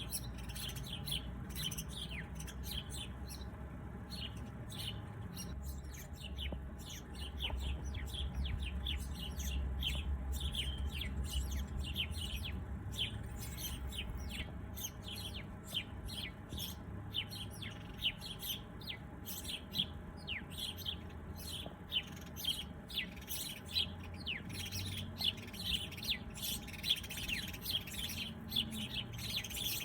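Small birds chirping: a steady stream of short, high, downward-slurred chirps that grows denser about halfway through, over a low background rumble.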